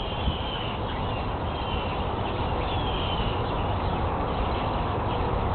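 Steady outdoor background noise, with a bird chirping faintly a few times in short falling calls.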